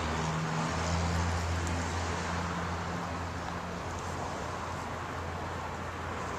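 Steady low motor hum under an even rushing noise; the higher of its hum tones drops out about four seconds in.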